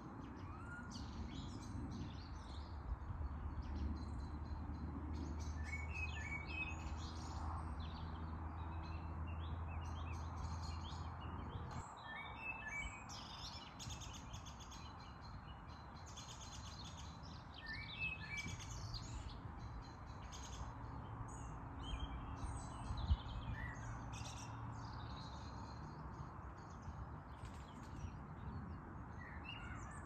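A chorus of small songbirds chirping and twittering in many short, overlapping calls. Under them runs a steady low hum that cuts off about twelve seconds in.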